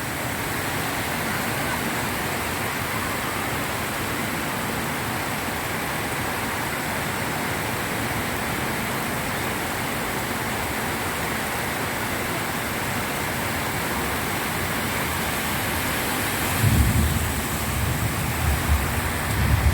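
Heavy rain pouring down in a steady, even hiss. Over the last few seconds, low rumbling swells rise under the rain.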